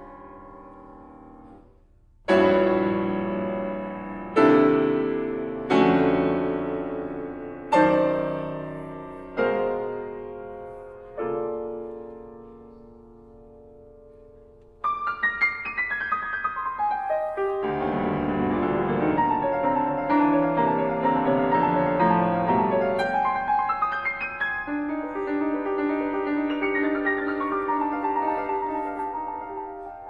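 Grand piano playing contemporary music: six loud, separate chords, each left to ring and fade, then after a short lull a busier passage of quicker notes that keeps going.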